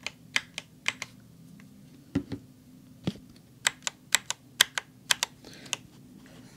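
Mechanical keyboard keys with cheap blue clicky switches and a yellow switch on the pause key, pressed one at a time: separate clacks in the first half, then quicker pairs of sharp clicks from about three and a half seconds in. The yellow switch has no click.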